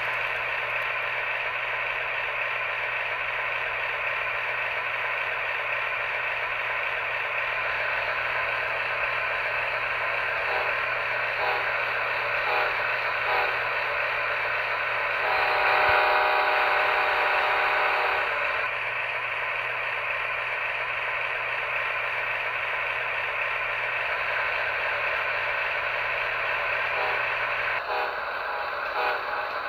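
Model train running on its layout: a steady rattle of the motor and wheels rolling on the track, with a low hum beneath. About halfway through, a locomotive horn sounds for about three seconds.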